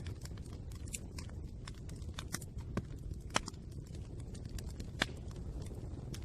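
Fire crackling: irregular sharp pops and snaps over a low steady rumble, with two louder pops about three and a half and five seconds in.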